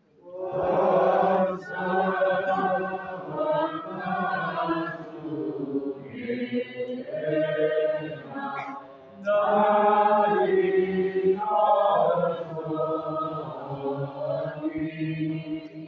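A small group of voices singing a hymn together, unaccompanied, in phrases a few seconds long with short breaths between them.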